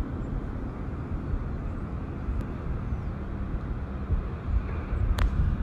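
Steady low outdoor rumble, uneven and gusty in its lowest range, with a faint click about five seconds in.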